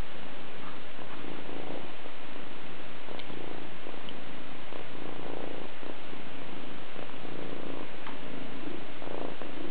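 Grey-and-white domestic cat purring steadily and contentedly while being scratched under the chin, the purr swelling and fading in pulses about once a second.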